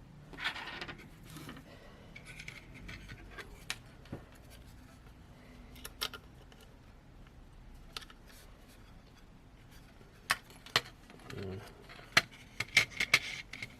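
Small tools and phone parts handled on a repair bench: scattered light clicks and taps, coming more often and sharper in the last few seconds.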